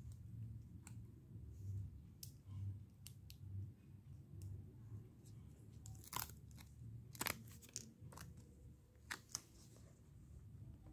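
Faint handling of paper: a sticker peeled from its backing paper and the backing crinkled by hand, with a few sharp crackles in the second half.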